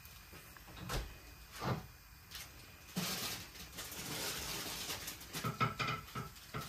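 Plastic wrap around a head of iceberg lettuce crinkling and rustling as the lettuce is handled on a stone countertop. Two light knocks come about a second in, then a longer spell of crinkling from about halfway through.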